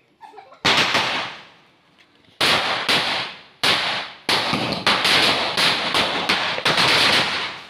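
Firecrackers going off: a single bang, then from about two and a half seconds in a rapid run of about a dozen bangs with crackling between them.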